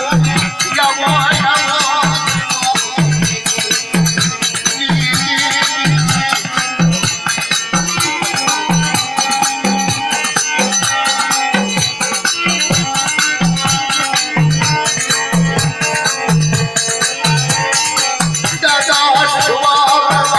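Music with a steady low drum beat, a continuous fast shaker rattle and a melody over it.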